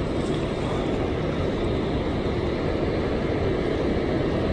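Steady rushing of churning water below an open dam spillway, one even unbroken wash of noise.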